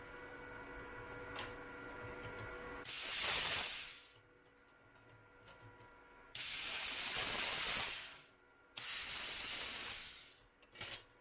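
Compressed air hissing from the hand torch of a SunGold Power 50-amp plasma cutter in three bursts, each about one to one and a half seconds, as the trigger is pulled. Only air comes through: the torch is not lighting an arc.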